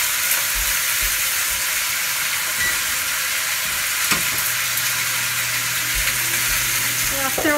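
Hot fat sizzling: a steady, even frying hiss. A little past halfway a click is followed by a low steady hum under the sizzle.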